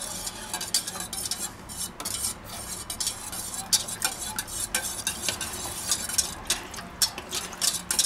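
A fork whisking thick herb crème fraîche in a stainless-steel bowl, scraping and clicking against the metal in quick, irregular strokes.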